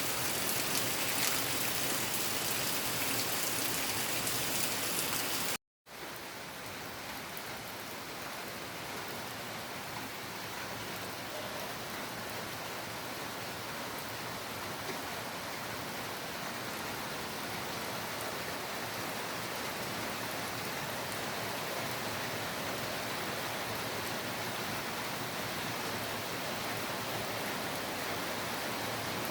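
Rain falling, a dense hiss of drops with fine pattering up high. About six seconds in it cuts out for a moment and resumes as a duller, steadier rush that slowly grows louder.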